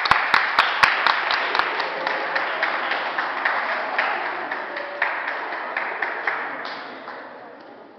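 Audience applauding: the clapping starts suddenly, with several sharp, loud claps close by at first, then slowly dies away.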